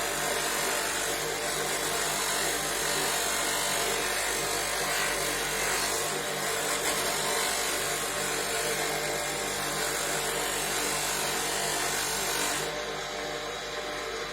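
Home-built polishing machine's motor running steadily, with a loud rubbing hiss of work against the 150 mm buffing wheel; about a second before the end the rubbing stops and the motor runs on alone.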